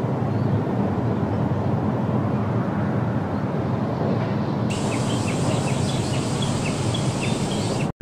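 Steady low outdoor rumble of park ambience, with small birds chirping repeatedly from about halfway through.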